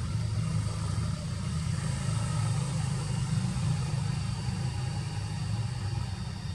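Steady low rumble with faint, steady high-pitched tones above it.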